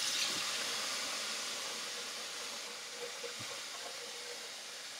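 Kitchen tap running a steady stream of water into a stainless steel bowl of raw chicken pieces in the sink, filling it for a second wash. A steady hiss of running water that grows gradually quieter.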